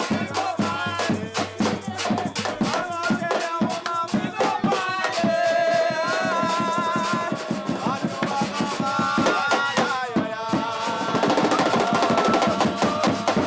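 Drums beating a fast, steady rhythm, with voices singing a traditional song in an African language over them.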